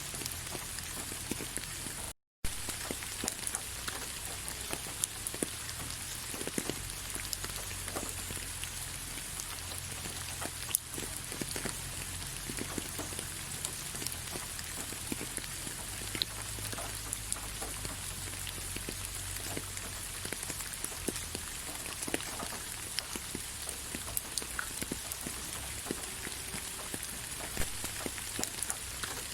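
Rain falling on leaves: a steady hiss of rain with many scattered individual drops ticking. The sound cuts out completely for a moment about two seconds in.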